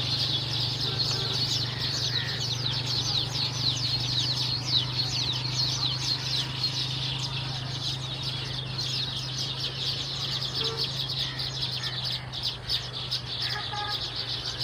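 A flock of baya weavers chattering, many short high chirps overlapping without pause, over a steady low hum.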